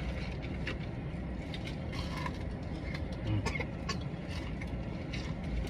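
Someone chewing crispy fried chicken, with small crunches, crackles and mouth clicks scattered through, over a steady low background rumble.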